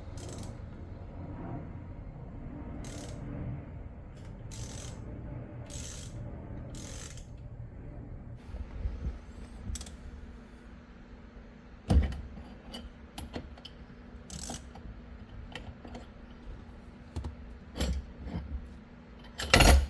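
Scattered clicks and knocks of hands and tools working on a C5 Corvette steering wheel to free it from the column, with a sharp knock about twelve seconds in and another near the end.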